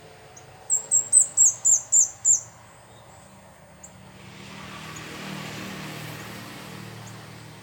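A bird in a tree calling: a quick run of seven short, very high chirps, each falling in pitch, starting about a second in and lasting about a second and a half. Later a soft rushing noise swells up and fades in the background.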